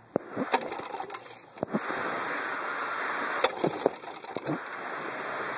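Rustling handling noise with several sharp clicks and knocks, as hands work the choke on a go-kart's small engine before it is started.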